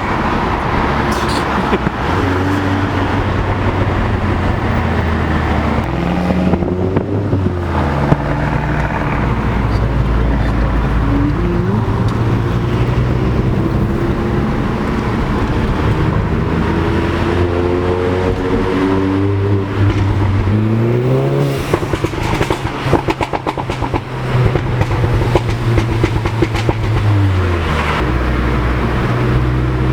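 Audi S1's turbocharged four-cylinder engine pulling through the gears, its pitch stepping up and dropping back with each change. About two-thirds of the way through it revs up sharply, then lets off with a rapid run of crackling pops from the exhaust.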